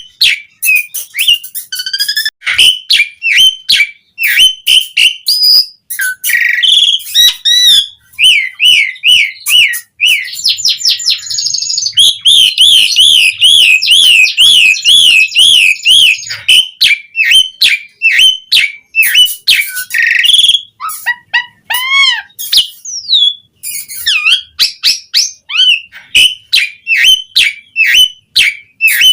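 Asian pied starling singing a long, varied song of loud whistled notes and quick chattering phrases. About halfway through comes a sustained run of rapid up-and-down whistles, and a little later a few lower, falling notes.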